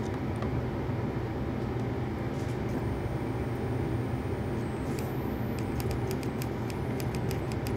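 Steady low hum of room and equipment noise, with a few faint clicks.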